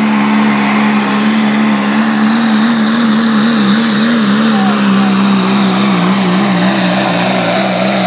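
Turbocharged diesel pickup engine at full throttle, pulling a sled: a loud steady drone that wavers about halfway through and sags a little in pitch as the load builds, with a thin high whine over it.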